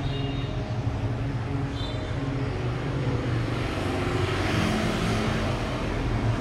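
Steady low rumble of road traffic, with two brief high tones, the first near the start and the second about two seconds in.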